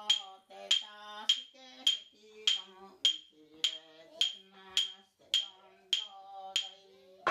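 A pair of wooden clappers struck together in a steady beat, about one and a half clacks a second, while a woman chants a prayer in long, level tones between the strikes. A louder clack comes at the very end.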